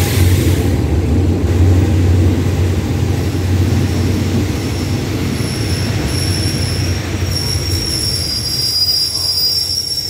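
SRT GEK-class diesel-electric locomotive 4007 passing with a deep engine drone that fades as the coaches roll by. From about halfway, a high steady metallic squeal sets in as the train brakes to a stop.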